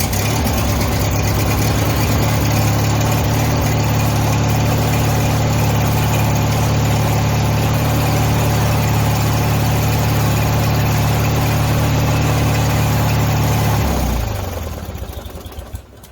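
Craftsman riding lawn mower engine running steadily, then shut off about fourteen seconds in, its pitch falling as it winds down to a stop.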